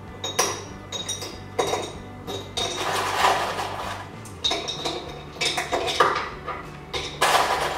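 Metal spoon clinking against a glass jar: a quick, irregular run of sharp clinks, some with a short ring, over light background music.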